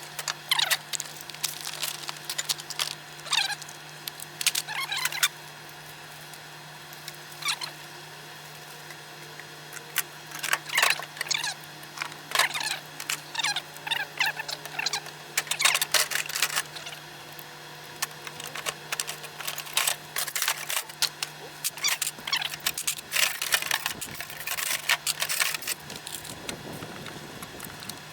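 Metal hand tools clinking and clattering in irregular bursts as they are handled and sorted into toolboxes, over a steady low hum.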